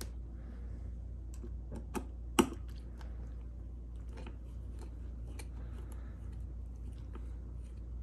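Light clicks and ticks of a Phillips screwdriver driving the screw that holds a plastic fuel-selector knob, with two sharper clicks about two seconds in.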